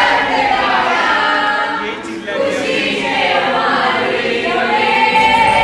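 A chorus of many voices singing together in gliding lines, with a long held note near the end.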